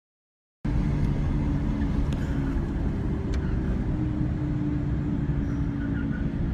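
Silence, then after about half a second a sudden start of steady highway driving noise: engine and tyre rumble of vehicles at speed, with a steady low hum over it.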